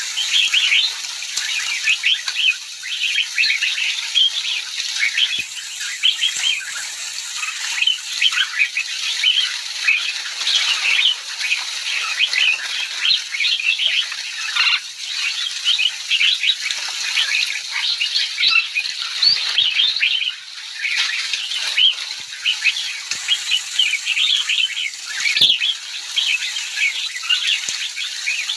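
A large flock of bulbuls chattering: many short, overlapping calls without a break, with fluttering wings.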